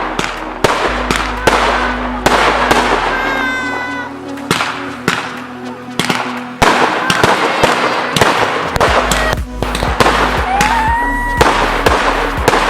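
A 100-shot mixed-calibre firework cake firing: a rapid run of launch thumps and cracking bursts, with several short whistles gliding up or down in pitch among them, over background music.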